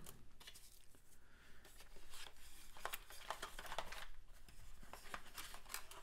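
Faint rustling and scattered light clicks of a small cardboard box and its folded insert being handled and opened.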